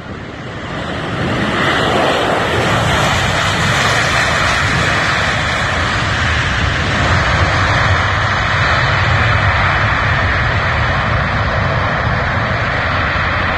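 Jet airliner's engines, a loud, steady rushing noise that builds over the first second or so and then holds.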